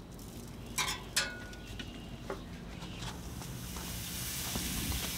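Beef tri-tip sizzling as it sears on a hot charcoal grill grate, the sizzle building from about three seconds in. About a second in there are two sharp clinks, the second ringing briefly like metal.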